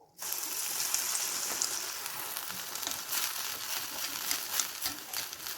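Medu vada (urad dal fritters) deep-frying in hot oil: a dense, crackling sizzle that starts abruptly just after the start and then runs steadily.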